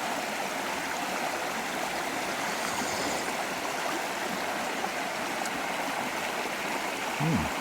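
A creek running steadily, its water rushing in an even, unbroken hiss.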